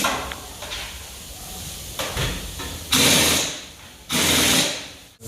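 Pneumatic impact wrench in short bursts, two loud ones about a second apart in the second half, tightening the lug nuts as the wheel goes back on, with a few tool clicks before them.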